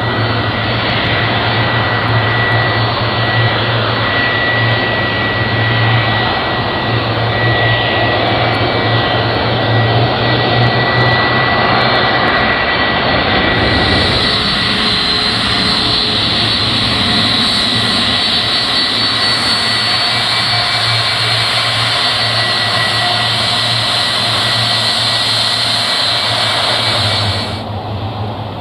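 Boeing 757-300 airliner's jet engines running as it taxies: a steady jet noise with a high whining tone over it. About fourteen seconds in the sound changes abruptly to a hissier mix of another 757 taxiing, and it drops in level shortly before the end.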